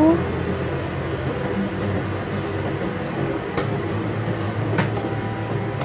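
Steady low mechanical hum of kitchen machinery, with two light clicks, about three and a half and five seconds in.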